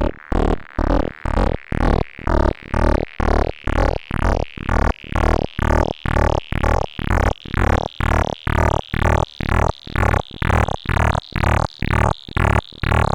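Synthesized digital glitch sound effect: a loud, evenly stuttering train of short electronic pulses, about two to three a second, with a tone that rises slowly in pitch.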